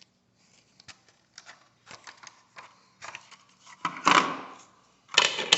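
Plastic clicking and scraping as a plug-in smoke detector is twisted off its mounting base, with two louder rasping scrapes about four seconds in and near the end.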